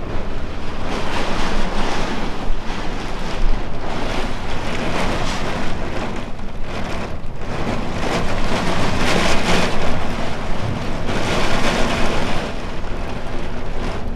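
Heavy rain and strong gusting wind, with the wind buffeting the microphone. The noise swells and eases in gusts, with surges about a second in, around five seconds, and again from about nine to twelve seconds.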